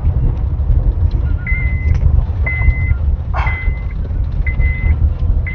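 Car driving slowly over a rough, potholed dirt road, heard from inside the cabin as a steady low rumble. A high electronic beep repeats about once a second, each about half a second long, starting about a second and a half in.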